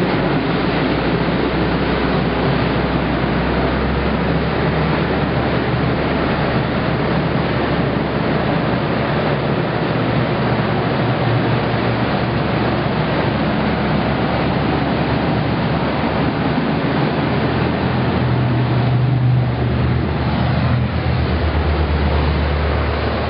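Car ferry's engines running at the dock, its propellers churning the water: a steady low engine hum under a loud rush of water. The hum grows stronger near the end.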